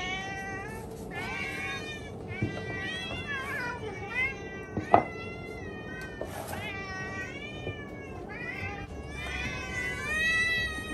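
Several house cats meowing insistently for their breakfast, many overlapping calls rising and falling in pitch. A single sharp knock about halfway through.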